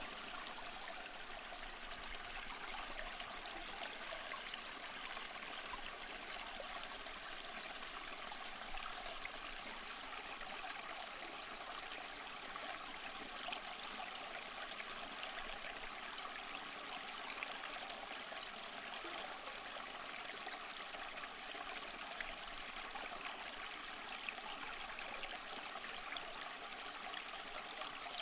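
Small stream flowing and trickling steadily, an even rushing with fine splashing detail.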